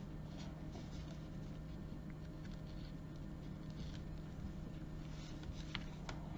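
Faint rustling and scratching of a stiff leather lace being pulled and worked into a snake knot by hand, with a couple of light clicks near the end, over a steady low hum.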